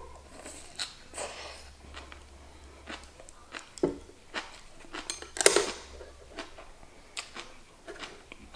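Close-up eating sounds: chewing, with chopsticks clicking and scraping against a porcelain rice bowl in scattered short clicks, the loudest about five and a half seconds in.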